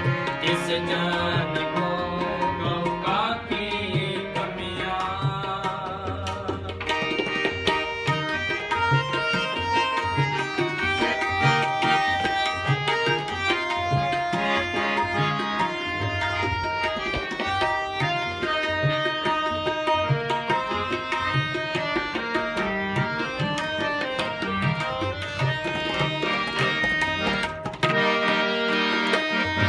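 Harmonium and tabla playing an instrumental passage of Sikh gurbani kirtan. The harmonium holds melody notes over a steady run of tabla strokes.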